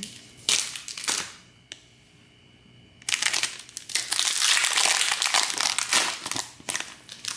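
Foil Pokémon booster pack wrapper crinkling as it is handled and torn open: a brief crinkle about half a second in, a pause, then a longer run of crinkling from about three seconds in.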